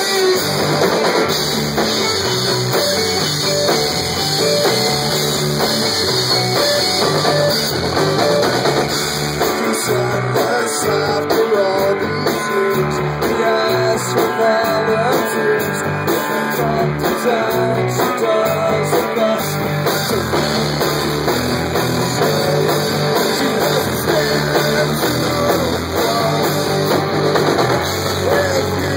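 A rock band playing live at full volume: electric guitar and drum kit, with a singer's voice in the mix.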